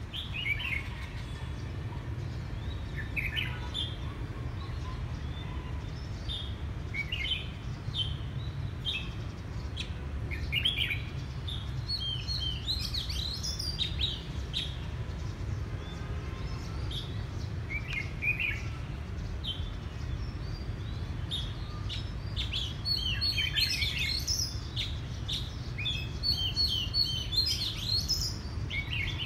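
Caged Oriental magpie-robin singing: short whistled phrases with gaps between them, coming thicker and more continuous in the last several seconds. A steady low rumble runs underneath.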